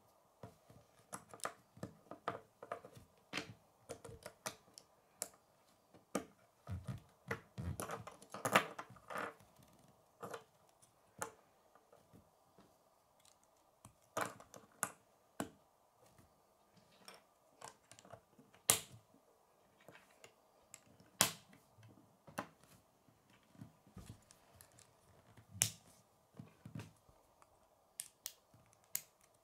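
K'nex plastic rods and connectors clicking and snapping together as they are handled and pushed into place: irregular sharp clicks, with a few louder snaps.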